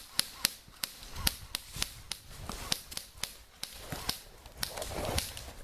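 Airsoft guns firing a rapid string of single shots: sharp, light cracks coming about three to four a second.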